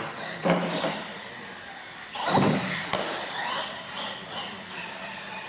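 Radio-controlled monster truck driving on a concrete floor, its motor and tyres surging loudly about half a second in and again a little after two seconds.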